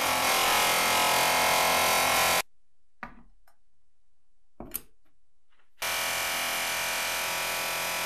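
Bench grinder running with a small brass part pressed to the spinning wheel: a loud, steady grinding hiss over the motor's hum. It cuts off abruptly about two and a half seconds in, leaving quiet with two light clicks. The grinding starts again near six seconds in.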